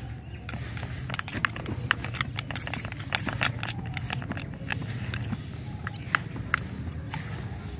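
A metal knife blade beating and stirring a raw egg mixture in a small steel bowl: many irregular clicks and taps of blade on bowl, over a steady low hum.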